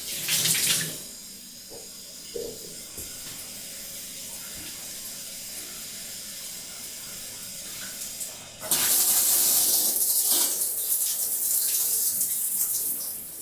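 Water running into a bathtub: a short louder splash at the start, then a steady gentle flow that turns much louder and fuller about nine seconds in.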